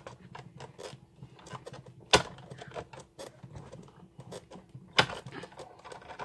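Big Shot die-cutting machine being hand-cranked, its rollers clicking steadily as a Thinlits die sandwich passes through, with two sharp knocks, about two seconds in and again about five seconds in.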